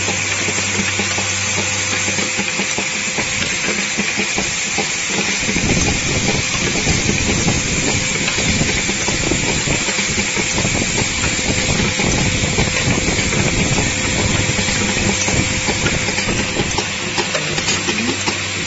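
Automatic radial-component lead-forming machine with a vibratory bowl feeder running: a steady hiss and dense, rapid clicking and rattling of parts and tooling. A faint steady hum is there as well, and the rattle grows heavier in the low end from about five seconds in.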